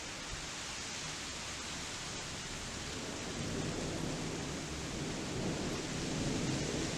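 Steady rain falling during a thunderstorm, with a low rumble of thunder swelling from about three seconds in and carrying on to the end.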